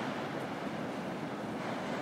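Steady, even rumble of city street traffic ambience, with no single sound standing out.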